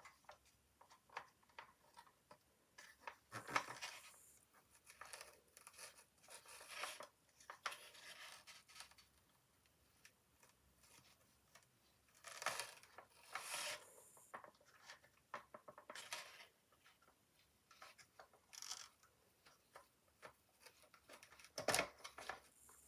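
Toy packaging being worked open by hand: on-and-off scraping, tearing and rustling of cardboard and plastic with small clicks, the struggle with small black plastic fasteners on the bottom of the box. A sharp click comes near the end.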